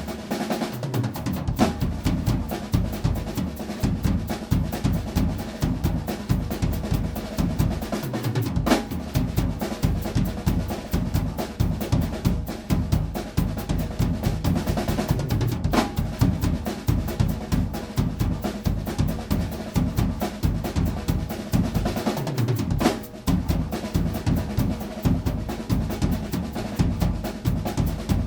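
Acoustic drum kit played solo: fast, dense bass drum and snare patterns with rolls, rimshots and a few cymbal crashes, with brief breaks in the bass drum about a third of the way in and near the end.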